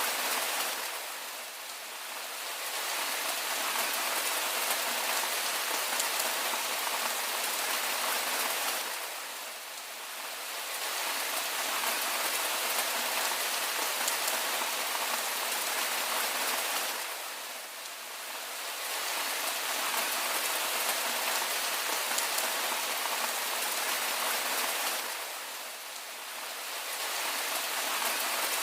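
Steady rain falling on a surface, an even hiss with fine drop patter. It eases briefly about every eight seconds, then comes back to the same level.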